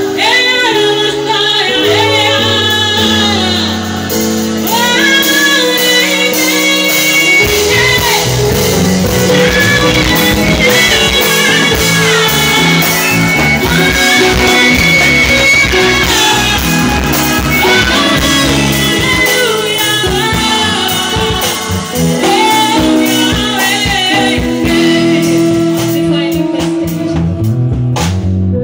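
Live gospel praise-and-worship music: a woman singing lead through a microphone with keyboard backing, and a drum kit joining in about seven seconds in.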